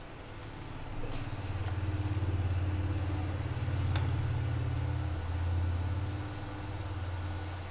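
Cooling fans of an opened-up video projector running, a low steady hum that swells about a second in, with one light click about four seconds in.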